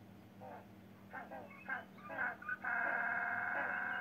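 Banded penguins calling: a few short, harsh notes, then from about two and a half seconds in one long braying call held at a steady pitch.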